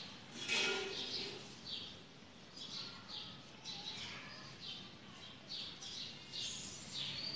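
Small birds chirping, short high chirps repeated about once or twice a second.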